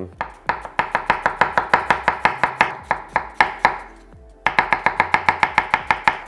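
Chef's knife slicing an onion on an end-grain wooden cutting board: quick, even strokes knocking on the board, about six a second, with a short pause a little past the middle.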